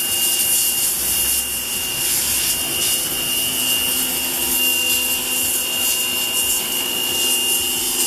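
WAP Ousada Plus 2200 electric pressure washer running with the trigger held, a steady high motor whine over the hiss of its narrow jet striking a brick. The jet is on its strongest setting and is wearing a hole in the brick.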